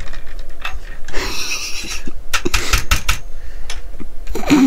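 Clicks and taps of a small plastic part being pushed and worked into the metal body of a die-cast Corvette model kit, in irregular bursts, a tight fit that won't go in easily.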